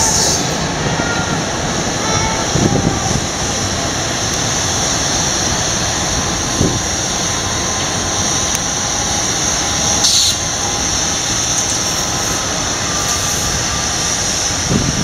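Locomotive-hauled passenger train rolling past: a steady rumble of wheels on the rails with a continuous high hiss over it. There is a single sharp clack about ten seconds in.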